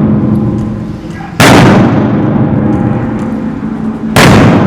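Two heavy firecrackers going off, one about a second and a half in and one near the end, each a sudden sharp bang followed by a long echoing tail.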